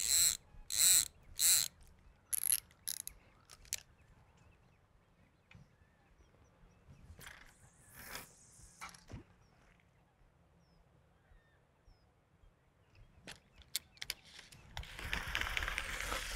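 Fishing reel clicking in a string of short, sharp ratcheting bursts as line is worked off and back onto the spool, with a few fainter clicks later. A steady hiss starts near the end.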